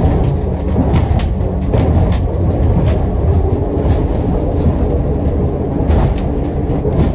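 Twin Honda 250 hp outboards running steadily with the boat under way, heard from inside the wheelhouse as a low rumble mixed with rushing water and wind against the hull, broken by a few irregular knocks.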